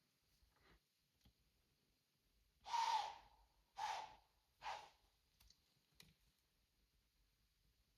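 White-tailed doe blowing three times in quick succession, sharp forceful snorts through the nose about a second apart, the first loudest: the alarm blow of a nervous deer.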